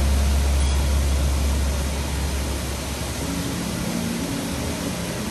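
Steady rushing hiss from a water show's fountain jets, under a deep low rumble that fades away over the first two seconds; faint held music notes come in about halfway through.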